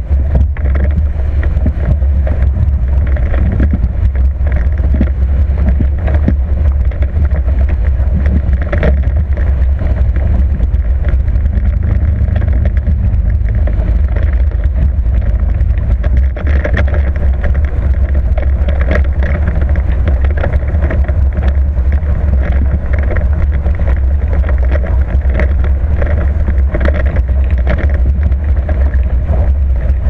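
Hobie 20 racing catamaran hull running fast through the water: a steady rush of water and spray with frequent irregular splashes, under a heavy low wind rumble on the microphone.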